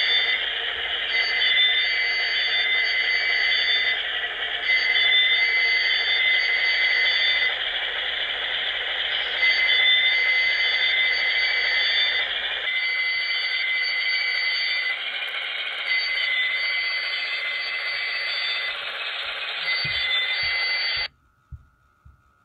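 Sound from the HO-scale Broadway Limited Baldwin Centipede's Paragon 2 sound system, playing through the model's small onboard speaker: a dense, steady diesel locomotive engine sound with high tones sounding on and off over it. The sound changes about two-thirds of the way in and cuts off abruptly near the end.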